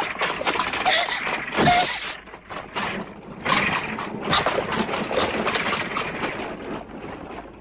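Horse-drawn carriage passing at speed: a dense clatter of hooves and wheels over a noisy rush.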